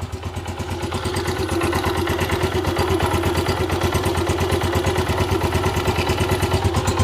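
Honda CG125 (2022 model) single-cylinder four-stroke engine idling, heard close up at the exhaust silencer: a steady, even exhaust beat that grows a little louder over the first two seconds.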